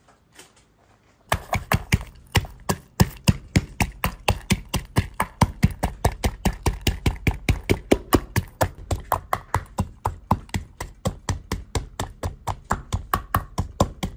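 Knife chopping on a cutting board, a steady run of sharp knocks at about four to five strokes a second, starting about a second in.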